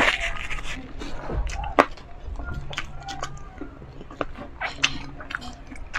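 Close-miked chewing of crispy pork, with short crunches and wet mouth clicks. A brief rustle of a tissue wiped across the mouth comes at the start.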